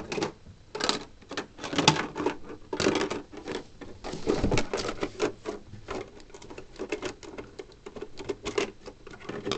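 Irregular clicking and rattling of hard plastic parts being handled, with some rustling, as the small toy claw machine and its loose cover are moved about.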